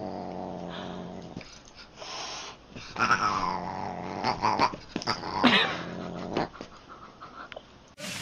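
A pet animal growling low, with two long cries about three and five and a half seconds in that fall in pitch.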